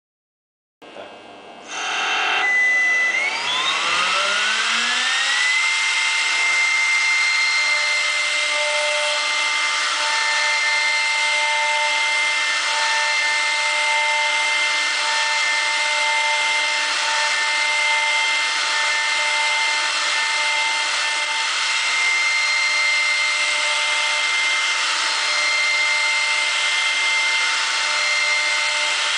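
CNC router's 1.7 kW, 18,000 rpm spindle starting about a second in and spinning up with a rising whine, then running steadily at full speed as a 10 mm cutter mills a block of PVC.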